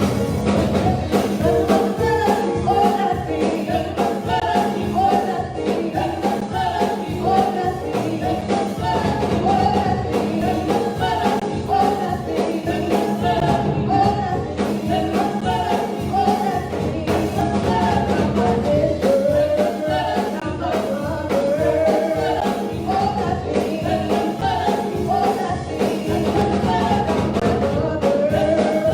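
Gospel praise song: voices singing over a band with a steady drum beat.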